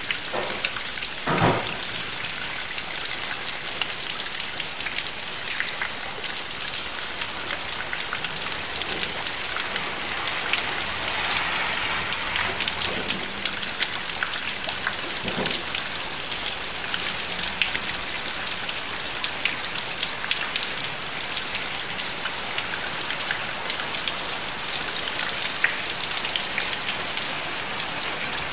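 Steady rain: an even hiss of many small drop ticks, with a couple of louder, duller drop hits landing close by, one near the start and one about halfway through.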